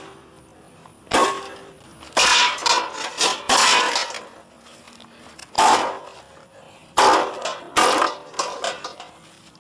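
A lawn mower being smashed: about six heavy metallic clangs and crashes, a second or so apart, each ringing on briefly.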